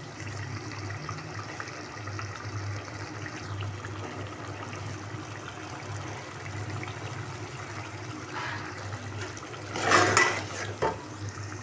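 Chicken curry with oil and yogurt sizzling and bubbling in an aluminium pot as it fries, over a steady low hum. About ten seconds in there is a short, louder burst of noise.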